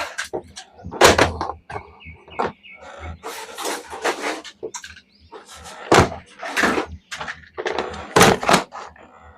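Plastic toys and packaging being handled: irregular knocks, clicks and rustles, with heavier knocks about a second in, around six seconds in and around eight seconds in.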